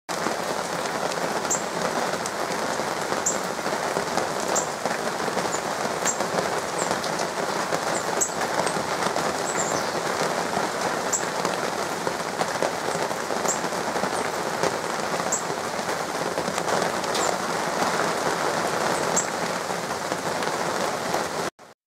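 Steady rain falling, with a bird's short, high chip notes repeating about every one to two seconds.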